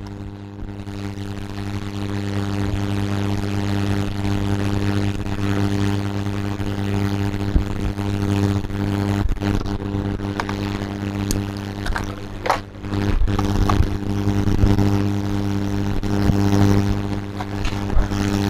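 Steady low electrical hum, a mains-type drone with even overtones, with a few short clicks and taps partway through.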